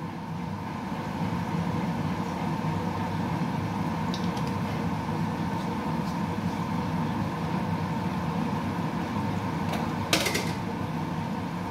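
A steady mechanical hum, with a short clatter about ten seconds in.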